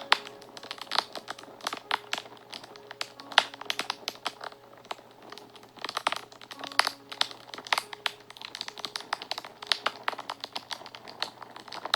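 Wood fire crackling, with many irregular sharp pops and snaps, over faint soft background music with a few long held notes.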